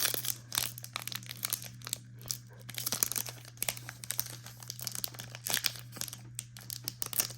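Packaging of a trading-card blaster box crinkling and tearing as it is worked open by hand, in a long run of irregular crackles and rustles. A steady low hum sits underneath.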